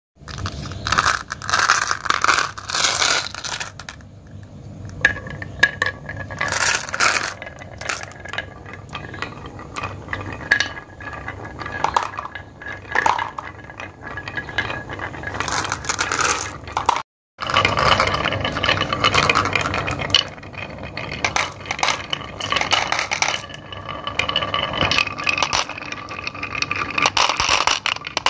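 Glass marbles rolling along the serpentine grooves of carved wooden marble-run boards, with a continuous rolling rumble broken by many sharp clicks and clinks as they hit the groove walls and each other. Marbles also clink as they drop into a plastic toy dump truck's bed.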